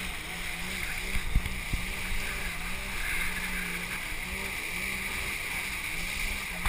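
Banana boat towed at speed through choppy sea: rushing water and spray over a low engine hum from the tow boat that wavers up and down in pitch. A few thumps come between one and two seconds in.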